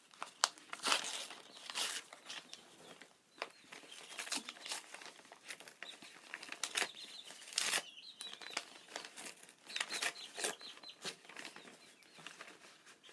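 Paper envelope being torn open and its contents handled, a run of irregular short crinkles, rustles and tears.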